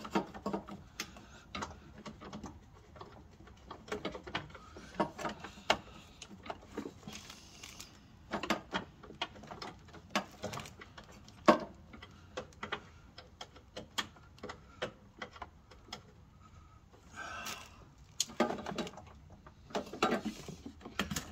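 Scattered light clicks and taps from hands and small metal parts being worked by hand in a car's engine compartment, as the clutch master cylinder and its line fittings are fitted.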